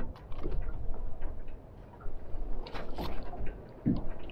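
Scattered light clicks and taps, with a cluster about three seconds in and a low knock near the end, as fishing tackle and a just-landed dogfish are handled. A steady low rumble of wind on the microphone runs underneath.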